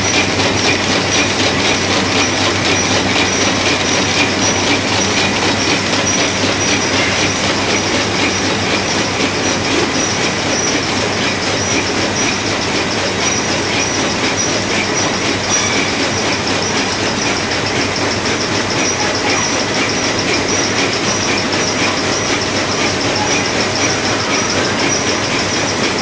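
Biscuit packing line running: its vibratory feeder and conveyors make a loud, steady, fast rattle as the biscuits are shaken along the chutes, with a thin high-pitched whine over it.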